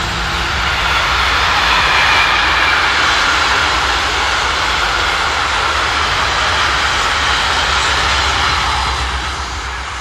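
Freight train of tank wagons hauled by a 6Dg diesel locomotive passing close by: a loud, steady rumble and rolling noise that begins to fade near the end.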